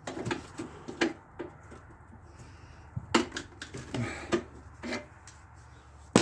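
Irregular clicks and knocks of tools and metal parts being handled during work on a lawn mower's front axle, with a cluster of taps a few seconds in and one sharp, loud knock at the very end.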